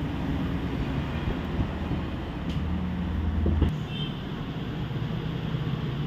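Low, steady rumbling background noise. A deeper rumble within it stops abruptly a little past halfway, and there are a couple of faint clicks.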